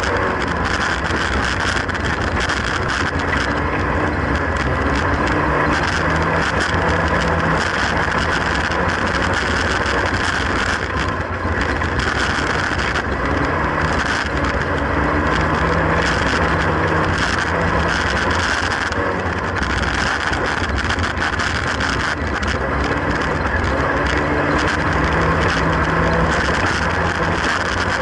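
Classic Mini's A-series four-cylinder engine running hard under racing, heard from inside the stripped-out cabin, its revs climbing and falling again every several seconds through the laps, under a steady din of wind and road noise.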